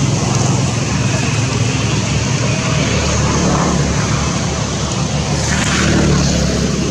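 Steady low engine rumble, like nearby motor traffic, swelling briefly near the end, with faint voices in the background.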